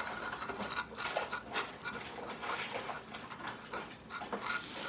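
A group of cats eating wet food from bowls on a tile floor: a busy run of chewing and lapping with many small clicks.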